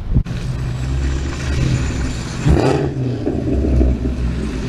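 A car's engine running with a low, steady rumble as the car rolls in, growing briefly louder about halfway through.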